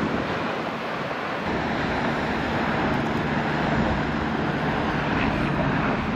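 Lava fountain jetting from Piton de la Fournaise's erupting spatter cone: a steady rushing noise with a low rumble underneath, mixed with wind on the microphone.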